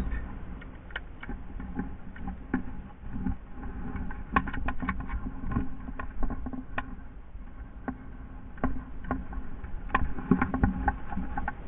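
Scattered light clicks and knocks from footsteps and airsoft gear as a player moves over rocky, brushy ground, coming in two small clusters, a few seconds in and near the end, over a low steady rumble.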